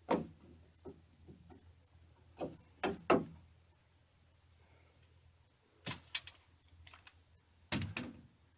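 Irregular knocks and clunks of wood being handled or bumped during construction work, about eight of them, some in quick pairs, with quiet in between.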